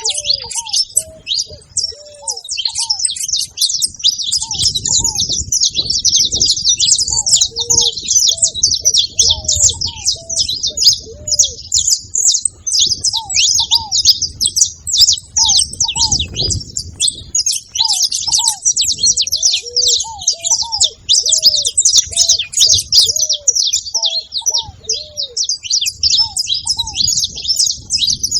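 A group of saffron finches chirping and singing together in a dense, continuous high chatter. A lower, arched call repeats every second or so underneath.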